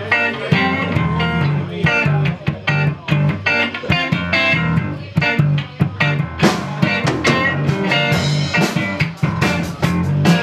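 Live rock band playing an instrumental intro: electric guitars over a drum kit keeping a steady beat.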